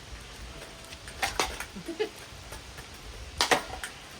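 Hard knocks and clattering impacts of objects being struck in a smashing session. There are two sharp hits about a second in, and a louder double hit about three and a half seconds in.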